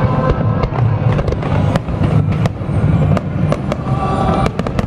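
Aerial fireworks exploding in quick succession: many sharp cracks and bangs, some in clusters, over a continuous deep rumble of bursts.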